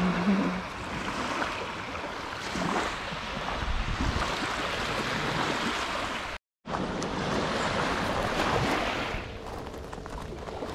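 Sea waves washing onto a beach, the surf swelling and ebbing. The sound drops out completely for a moment about two-thirds of the way through.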